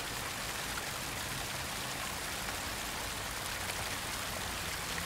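Steady rushing-water sound, an even hiss, with a faint low hum beneath it.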